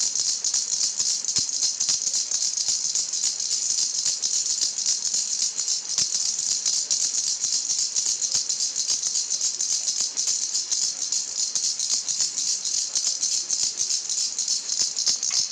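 A baby's toy rattle shaken quickly and without pause, giving a steady, dense, high rattling.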